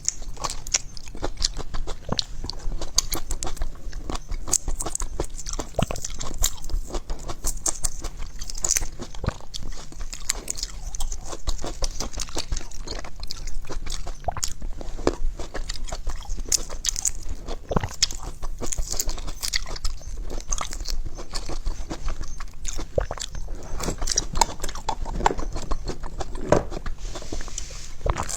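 Close-miked chewing and biting of food, with many quick irregular crunches and wet clicks.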